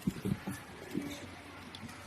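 Soft rustling and a few light knocks from handling packaging while the compressor pump is unpacked from its box.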